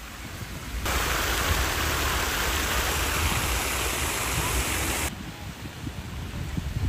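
A steady rushing noise, spread evenly from low to very high pitch, that starts abruptly about a second in and stops abruptly about four seconds later, over a low rumble.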